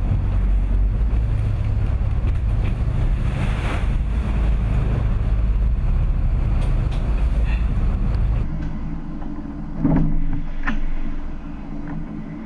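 A Princess V39 motor yacht's engines and hull heard from inside the cockpit while it pushes through heavy, breaking seas: a dense low rumble mixed with rushing water and wind, swelling with a surge of spray about four seconds in. About eight seconds in the sound turns into a steadier engine drone with a couple of sharp knocks.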